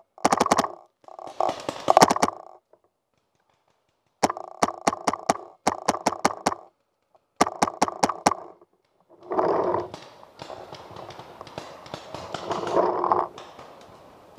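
Paintball marker firing in rapid strings of shots, about five volleys of sharp pops at several shots a second, close to the barrel-mounted camera. After about nine seconds the firing stops and a loud scuffling and rustling follows, then fades.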